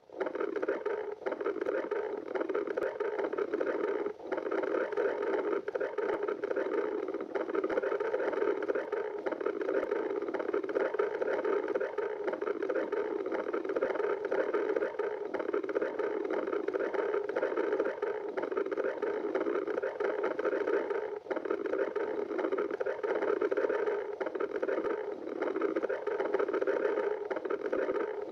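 A person's stomach growling in a long, continuous rumble, broken only by a few brief dips.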